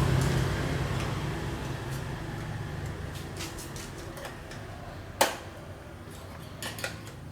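Scattered light clicks and clinks of small hard objects, with one sharp click about five seconds in, over a low hum that fades away.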